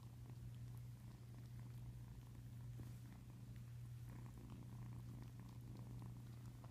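A 10-week-old kitten purring steadily and quietly.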